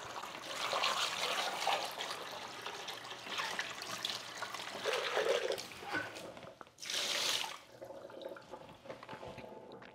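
Tap water running and splashing into a Vitamix blender's plastic container as it is rinsed out in a kitchen sink, with a brief louder splash about seven seconds in.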